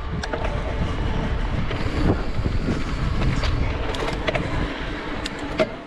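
Mountain bike riding over rough, rocky trail: a steady low rumble from the tyres and bike, with sharp clicks and rattles over the rocks, the sharpest near the end.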